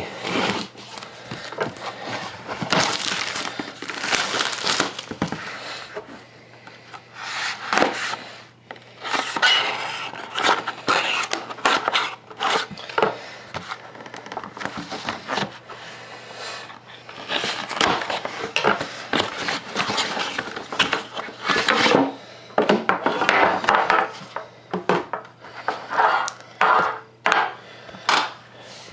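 Hands unsealing and opening a hockey card box: irregular crinkling of wrapping, rubbing and light knocks of the box and cards being handled, over a faint steady electrical hum.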